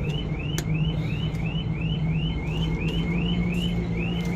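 Electronic alarm chirping over and over, a short rising tone about three times a second, over a steady low hum, with a sharp click about half a second in.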